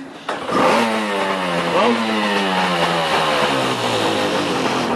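Restored Jeep's engine revving. It comes in suddenly, then its pitch falls slowly as the revs drop, with one short blip of the throttle about two seconds in.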